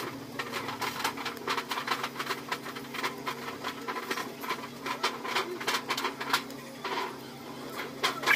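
Paper rustling and crinkling as a strip of craft paper is handled and folded by hand: a run of quick, irregular crackles over a steady low hum.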